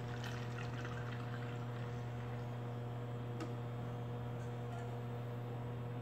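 Soapy water trickling through a plastic funnel into a glass jar, over a steady low electrical hum.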